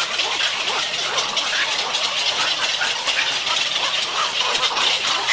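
Dense, steady clamor of a heron nesting colony: many bird calls and rattling chatter overlapping into one continuous din, as night heron nestlings are being fed.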